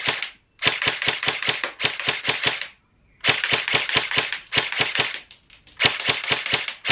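Heckler & Koch HK416C airsoft rifle fired rapidly on semi-auto. Fast strings of shots, several a second, are broken by short pauses about every second.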